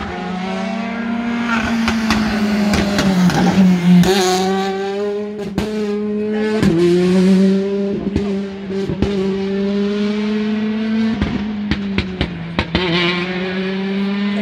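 Rally car engine held at high revs as the car drives the stage, its note dipping briefly about four, seven and eleven seconds in as it shifts or lifts. Sharp exhaust pops come throughout and crowd together near the end.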